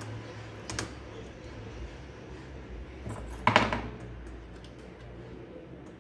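Small hard objects being handled, with a light click just under a second in and a louder clatter about three and a half seconds in, over a low steady hum.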